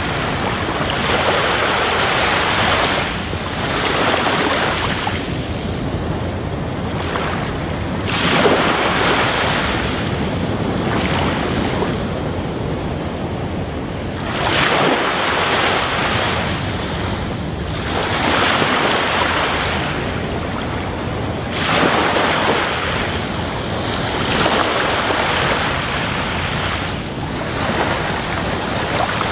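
Aquarium water bubbling and splashing: air from an air stone rising in a dense stream and breaking at the surface, a steady rush that swells and fades irregularly.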